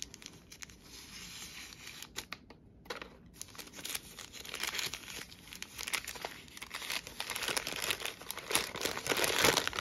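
Crinkly packaging being handled and torn open as an item is unwrapped: scattered crackles at first, then dense crinkling that grows louder toward the end.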